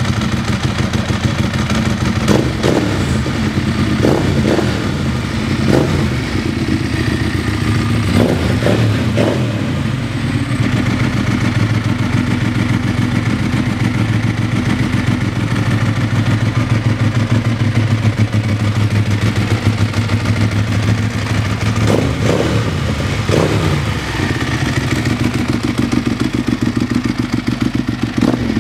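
Ducati 1198's L-twin engine running at idle, its throttle blipped into short revs several times in the first ten seconds and twice more about three-quarters of the way through.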